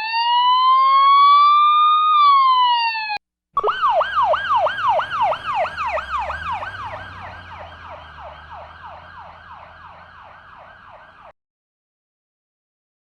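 Siren sound effect: one slow wail that rises and falls, then after a short break a fast yelp, about three falling sweeps a second, that fades away gradually and stops a couple of seconds before the end.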